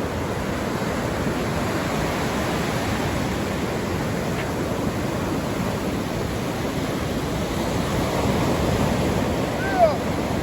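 Ocean surf breaking and washing up the beach as a steady rush.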